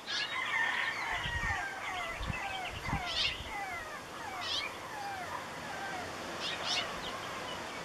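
Songbirds chirping: many short, overlapping whistled notes, each sliding down in pitch, with a few higher chirps. A low rumble comes in briefly between one and three seconds in.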